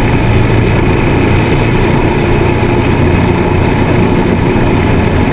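Harley-Davidson Sportster's V-twin engine running at a steady cruising speed, with wind rushing over the bike-mounted microphone.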